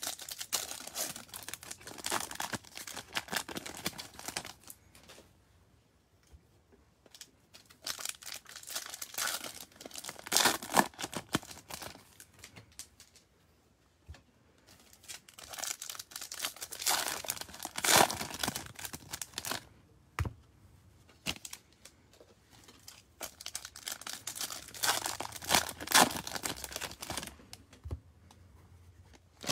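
Topps baseball card pack wrappers being torn open and crinkled, in four bursts of a few seconds each with short quieter gaps between.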